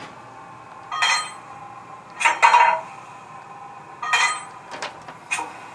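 Coupling sound effect from a Roco Ae 8/14 model locomotive's sound decoder, played through its small onboard speaker: three loud metallic clanks, then a few lighter clicks near the end.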